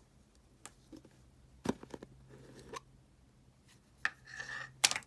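Scattered clicks and taps of small objects being handled close by, with a brief rustle just before a final sharp click near the end.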